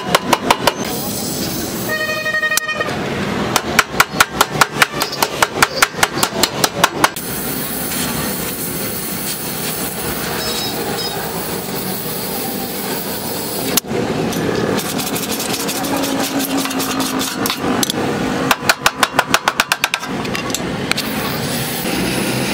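Runs of fast, sharp metal knocks, about five a second, at the start, for several seconds from about three seconds in, and again near the end, over a steady hiss. A brief car horn sounds about two seconds in.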